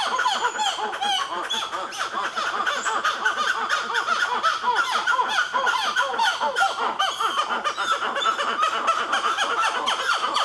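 Black-fronted titi monkeys calling loudly: a continuous stream of short rising-and-falling notes, several a second, overlapping without a break.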